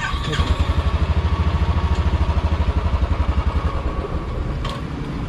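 2020 Royal Enfield Classic 350 BS6's single-cylinder engine idling with a steady, even pulsing beat. There is a single click near the end.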